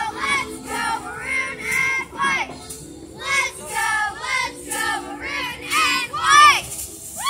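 Young girls of a cheer squad chanting a cheer together, loud shouted voices in a quick rhythmic pattern, with held notes of music underneath.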